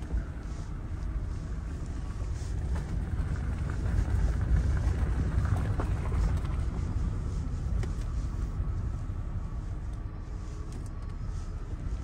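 Low, steady rumble of road traffic, swelling about four to six seconds in as a car passes.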